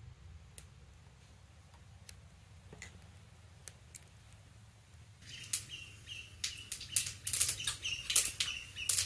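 Faint scattered ticks, then about five seconds in a dense crackling and popping starts and grows louder: mustard seeds spluttering in hot oil in a kadhai for the tempering.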